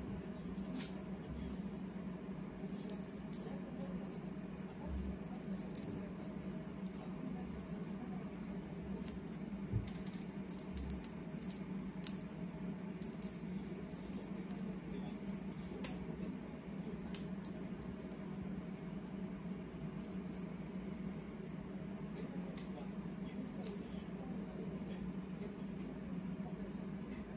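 Irregular bursts of light rattling from a feather cat-teaser wand as a cat bats and grabs at it, with quiet spells between, over a steady low hum.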